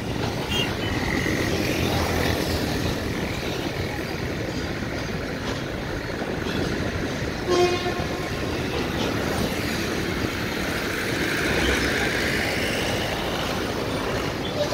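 Empty BOBRYN hopper wagons of a departing freight train rolling along the track with a steady rumble and wheel clatter. A short locomotive horn toot sounds about halfway through.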